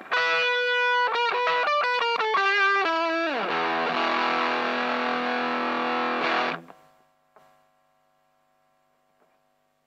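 Electric guitar (a Fender Stratocaster) played through a Danelectro Chicken Salad vibrato pedal and fuzz into a small transistor amp: a short run of wobbling notes, then a brief slide down into a distorted chord that is held for about three seconds and cut off suddenly, leaving a faint hum.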